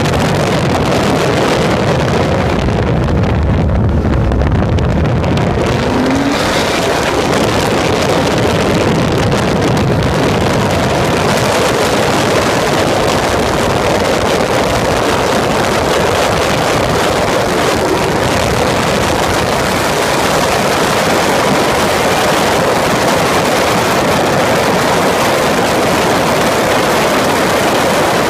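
Onboard sound of a Peugeot race car at speed: the engine running under load mixed with heavy wind rush on the microphone. The wind rush grows in the second half as the car accelerates past 200 km/h.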